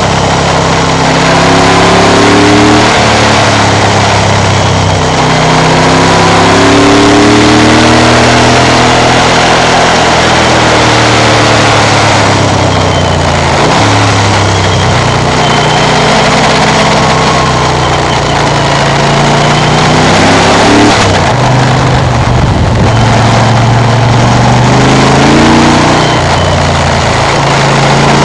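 Moto Guzzi 1100 Sport's air-cooled V-twin engine running while riding, its revs rising and falling several times, over a steady rush of wind.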